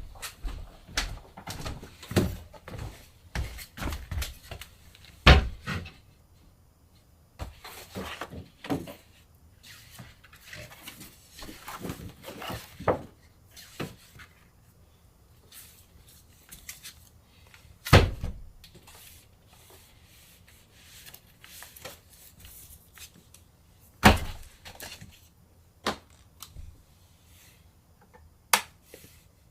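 Silkscreen plate-making work: equipment being handled, giving irregular clicks, taps and thumps. Busy clatter in the first six seconds, then sparser, with loud sharp knocks about five, eighteen and twenty-four seconds in.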